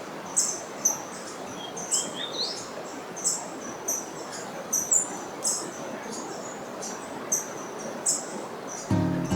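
A bird chirping, giving short high-pitched notes about twice a second, with one rising call about two seconds in, over a steady outdoor background hiss. Music comes in near the end.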